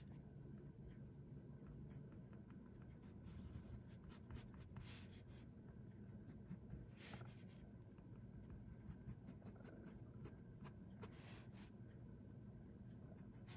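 Faint scratching of a Pilot Elite fountain pen's nib on paper as it draws and fills in lines: many short strokes with a few longer sweeps.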